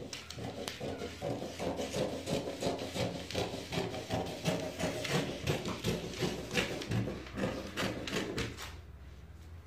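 Scissors cutting through a large sheet of pattern paper: a quick run of snips with the paper crinkling, stopping near the end.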